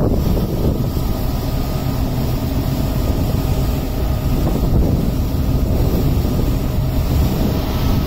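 Speedboat's twin outboard motors running steadily at cruising speed, heard on board, mixed with wind buffeting the microphone and water rushing past the hull.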